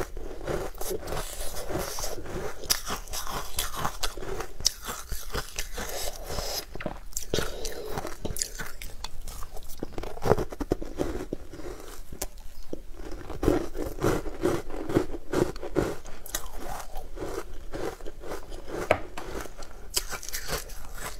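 Close-up crunching and chewing of crumbly green sweet ice, a rapid run of crisp crackles with each bite and chew.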